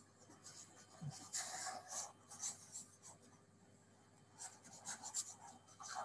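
Faint stylus scratching on a drawing tablet in quick back-and-forth strokes while erasing, in two spells a few seconds apart.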